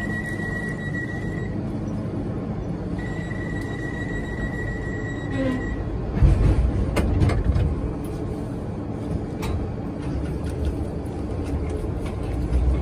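A London Underground 1972 Stock tube train standing at the platform with a steady low rumble and a steady high tone that breaks off once. About halfway there is a burst of thuds and clicks, and near the end the train starts to pull away, its rumble growing louder.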